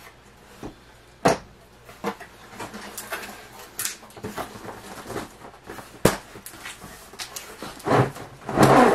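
Cardboard box of a dust collection hose being opened and handled: scattered knocks and scrapes, with sharp knocks about a second in and about six seconds in, and a longer, louder scraping rustle near the end as the box is lifted.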